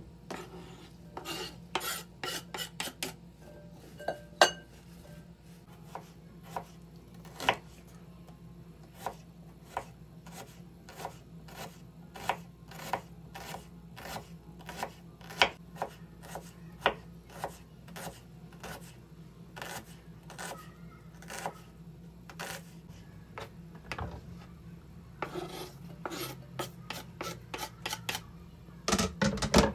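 Kitchen knife chopping an onion on a plastic cutting board, with steady sharp cuts about one and a half a second. Near the end come a quicker run of knocks, then a louder scrape and clatter as the chopped pieces are pushed off the board into a glass bowl.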